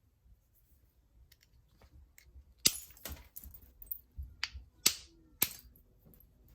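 Sharp clicks of stone being knapped as flakes come off a novaculite point: about five strikes in the second half, some with a short ring.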